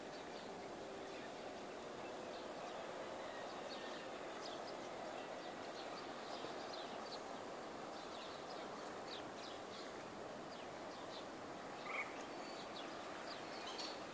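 Small birds chirping in many short, high notes over a steady background of rural outdoor noise. One brief, louder call stands out about twelve seconds in.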